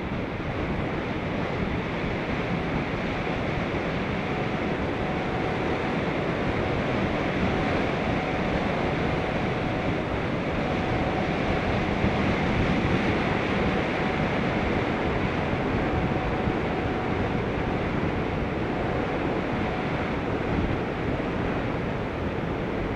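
Steady rush of wind over the microphone of a camera riding on a moving bicycle, with a faint steady whine through the middle.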